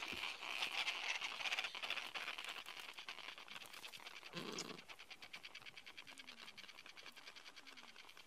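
Adélie penguins calling: a fast pulsing chatter that slowly fades, with one short, lower call about four and a half seconds in.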